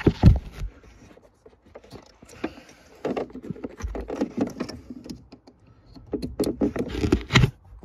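Handling noise from a phone camera being put down: a thump right at the start, then scraping, rustling and small clicks.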